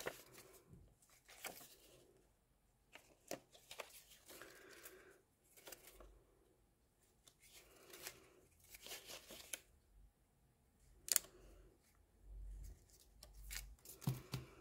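Faint, scattered rustling of a sheet of vellum paper being handled, with a few sharp clicks as glue dots are taken from their roll and pressed onto its corners.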